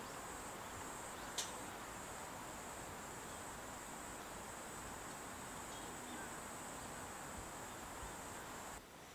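A steady, high, even chorus of autumn insects over a soft, even hiss, with one sharp click about a second and a half in. The chorus cuts off shortly before the end.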